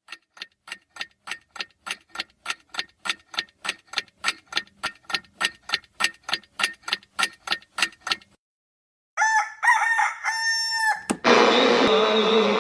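A clock ticking about three and a half times a second, growing louder, then stopping. After a short silence a rooster crows once, and music starts loudly near the end.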